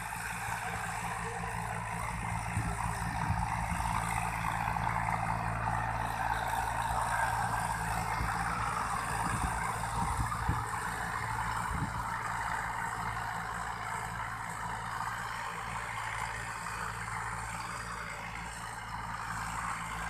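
Remote-controlled diesel farm tractor's engine running steadily at a distance as it pulls a cultivator through the field, a little louder in the first half.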